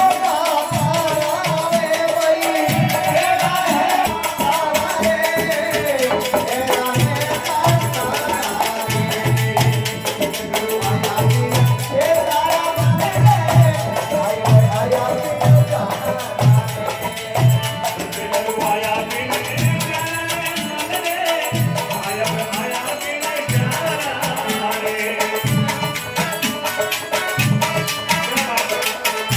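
Devotional bhajan sung in a folk style, with a steady hand-drum beat and jingling, rattling percussion keeping time.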